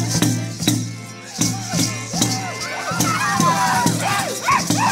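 Gourd rattles shaken and hand drums struck together in a steady dance beat, about two to three strokes a second, over a low steady hum. From about three seconds in, voices join with rising and falling cries.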